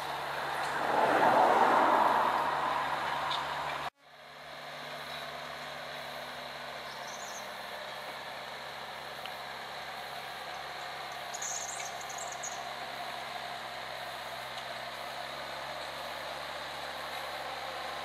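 John Deere 6320 tractor's four-cylinder diesel engine running steadily while pulling a four-furrow plough, heard from a distance. For the first few seconds a louder rushing noise swells and fades, cut off abruptly, and faint bird chirps come twice later on.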